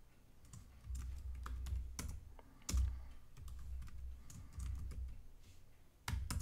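Typing on a computer keyboard: uneven keystrokes, with two sharp strokes in quick succession near the end.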